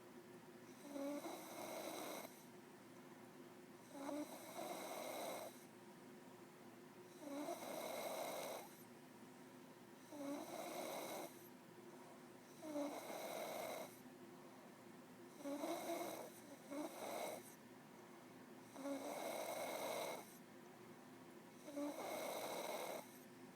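A woman snoring in deep sleep, one snore roughly every three seconds in a steady rhythm.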